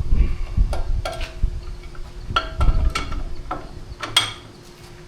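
Steel tools on the taper-lock hub and nut of a John Deere 730's crankshaft: about seven irregular metallic clanks and knocks, each ringing briefly, with dull thuds in the first second. The last clank is a little past four seconds in.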